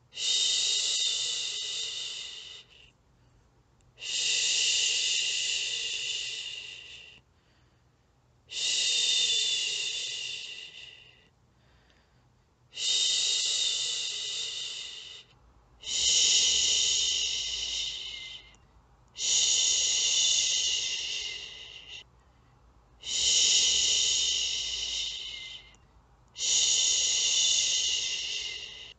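A woman's long shushes, 'shhhh', given eight times with short pauses between, each starting abruptly and fading away: a soothing shush for settling a baby to sleep.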